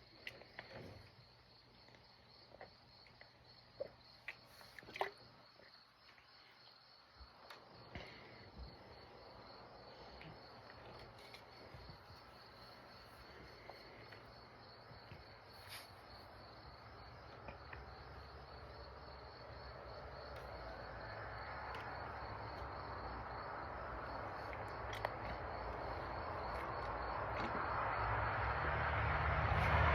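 Steady insect chirping, high and pulsed, with a few faint clicks. From about eight seconds in, a low rumbling noise builds steadily louder to the end.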